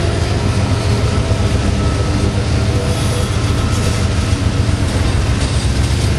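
Iowa Interstate freight train's lead diesel locomotives passing close by, their engines running loud and steady over the noise of wheels on the rails. The first freight cars start to roll past near the end.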